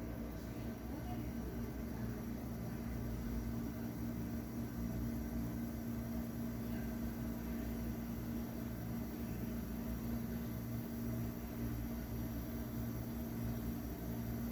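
Steady fan hum with a low, constant tone running underneath, unchanging throughout.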